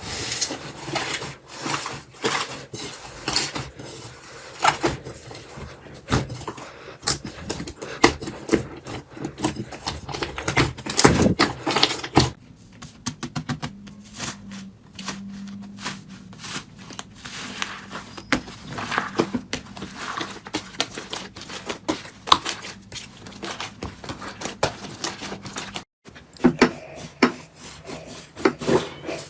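Hands squeezing, poking and stretching slime: a dense run of sticky clicks and crackles. The sound changes abruptly about twelve seconds in, where a faint steady hum joins it, and again near the end.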